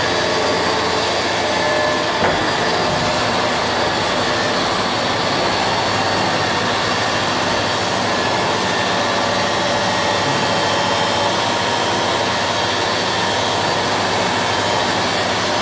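Deckel Maho CNC machining centre running, a steady mechanical whir with several faint steady tones in it.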